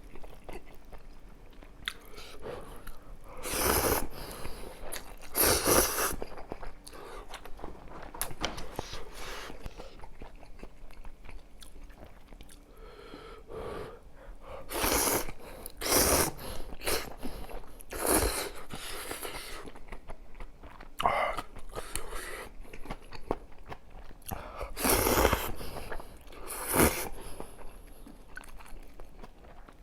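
Close-up eating sounds from a person eating kimchi kalguksu noodle soup and potato pancake: continuous chewing with small wet clicks, broken by several louder noisy bursts, each about half a second to a second long.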